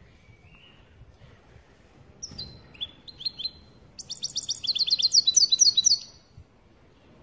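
European goldfinch calling: a few separate chirps, then about two seconds of rapid, high twittering from about four seconds in. This is the 'pat-pat' call that keepers play to stir up another goldfinch.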